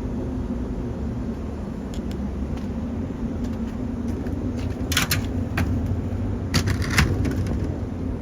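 Steady low rumble of background noise, with a few brief scraping clicks and knocks about five seconds in and again near seven seconds as the evaporative cooler's pads and panels are handled.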